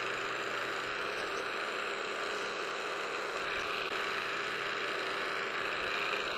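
Milling machine running steadily while a tiny end mill is fed down into a small round workpiece, milling a shallow hole.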